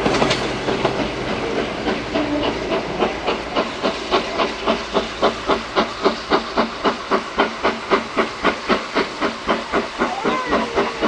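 Steam exhaust of GWR King class four-cylinder 4-6-0 No. 6024 King Edward I, beating hard and evenly at about three chuffs a second as the locomotive works a train away from a stand.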